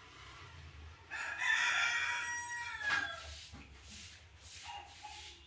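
A rooster crowing once, a long call of nearly two seconds that drops in pitch at the end, followed by a few short, softer calls.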